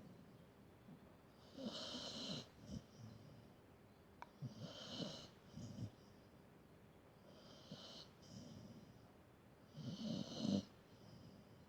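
A sleeping dog snoring: four slow snoring breaths, about one every three seconds.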